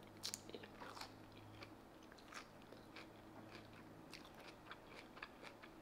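Faint crunchy chewing of a mouthful of leafy green salad with raw onion and bell pepper: many small crisp crunches spread through the chewing.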